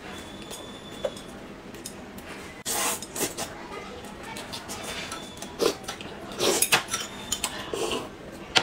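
Eating noodles: chopsticks clicking and scraping against a porcelain bowl, with several louder noisy slurping bursts, and a sharp clink near the end.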